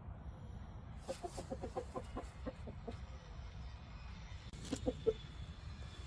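Chickens clucking softly: a quick run of short clucks about a second in, then a few more near the end.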